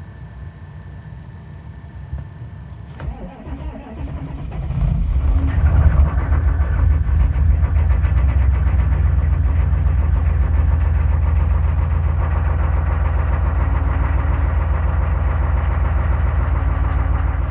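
6.5-litre Detroit Diesel V8 cold start: the starter cranks briefly from about three seconds in, the engine catches and flares up around five seconds, then settles into a steady idle.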